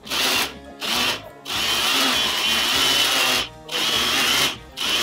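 Personal cup blender grinding raw peeled shrimp into a paste. The motor runs in pulses: two short bursts, a longer run of about two seconds in the middle, then more short bursts.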